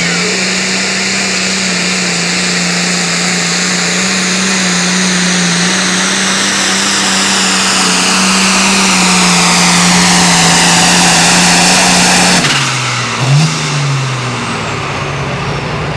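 Competition pulling tractor's engine held at full throttle through a pull, with a high whine over it. About twelve seconds in it lets off abruptly, blips once, and drops to a lower steady run while the whine falls away.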